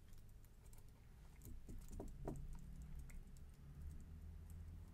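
Faint, scattered clicks of computer keyboard keys being pressed.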